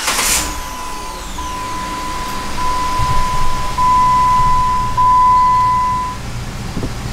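2008 Jeep Wrangler JK's 3.8-litre V6 started and idling, with a steady electronic warning tone from the cab that steps louder several times and cuts off about six seconds in. The brake pedal is worked with no hiss from the newly replaced vacuum brake booster, a sign that the booster now holds vacuum.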